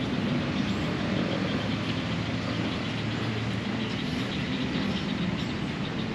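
Steady low rumbling outdoor background noise, even throughout, with no distinct events.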